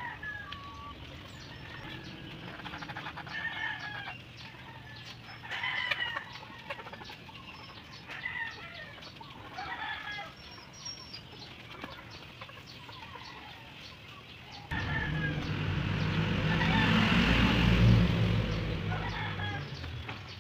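Chickens clucking, with a rooster crowing, in calls a few seconds apart. About three-quarters of the way through, a much louder low rumble starts suddenly, swells, then fades.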